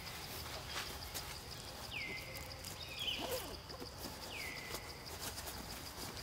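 Short high animal calls, three times about two seconds apart, each sliding down in pitch and levelling off, over a steady high pulsing trill.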